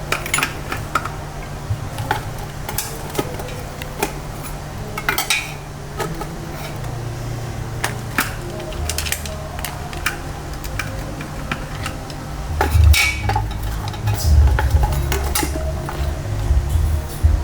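Kitchen clatter: metal utensils and dishes clinking and knocking at irregular moments, over a low rumble that grows louder in the last few seconds.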